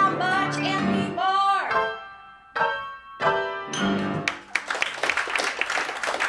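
Piano playing the closing chords of a jazz standard, the last few chords struck singly and left to ring. Audience applause breaks out about two-thirds of the way through and carries on.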